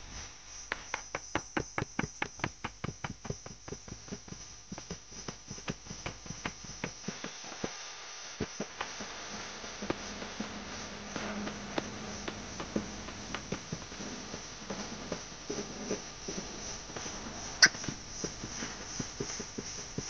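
Footsteps crunching on a dry, leaf-littered dirt trail. They come quick and regular for the first several seconds, then sparser and uneven, over a faint steady high insect drone. One sharp click comes near the end.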